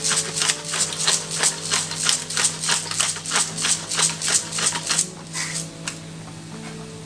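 Bottle-top pepper grinder being twisted over a pan: a rapid run of gritty crunching clicks, about three a second, that stops about five seconds in.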